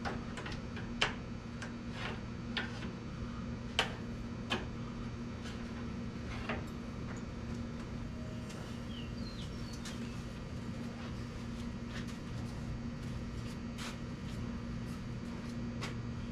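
Scattered light clicks and taps of hand work on a tractor, most of them in the first seven seconds, over a steady low hum.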